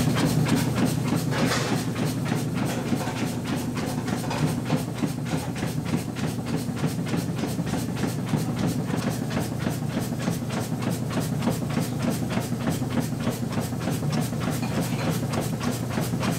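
Sausage-stuffing machine running, a steady hum with a fast, even clacking of about four or five a second, as it pumps blood-sausage filling through the nozzle into pig intestine casing.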